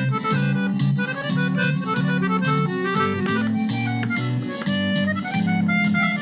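Piano accordion playing an învârtita, a Romanian folk dance tune: a quick-moving right-hand melody over a steady, repeating bass-and-chord accompaniment.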